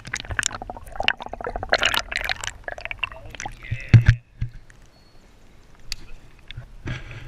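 River water sloshing and splashing around a half-submerged action camera as hands work in the shallows to release a bass, with rapid clicks and knocks of handling. A loud thump comes about four seconds in, after which it goes quieter.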